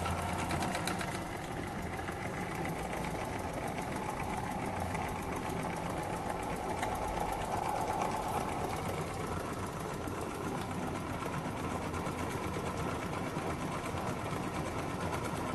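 Small live-steam oscillating (wobbler) engine running smoothly, a steady, fast, even mechanical clatter. It is running on low boiler pressure, about 4 or 5 psi by the builder's estimate.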